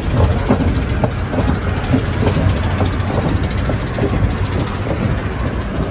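Store escalator running: a steady mechanical rumble with frequent light knocks.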